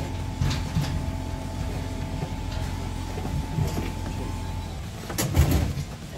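A steady motor hum that cuts off about four and a half seconds in, followed by a few sharp knocks.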